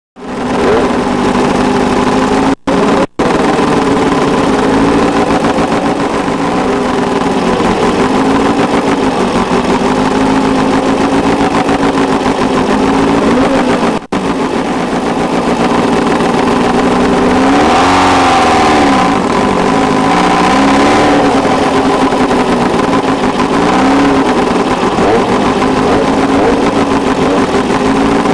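Off-road desert race vehicle engines running hard. The engine pitch dips and climbs back several times in the second half as the throttle is lifted and reapplied. The sound cuts out briefly three times in the first half.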